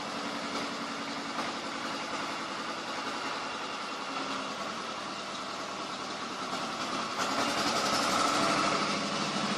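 Machinery running steadily, a constant hum with a hiss over it, getting louder about seven seconds in.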